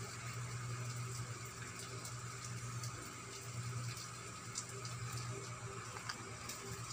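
Steady low hum under an even hiss, with a few faint ticks.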